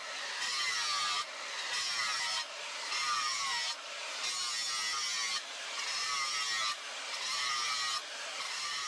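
Angle grinder with a sanding disc grinding the flat of a steel cleaver blade, pushed across the steel in repeated passes so the grinding swells and dips a little over once a second.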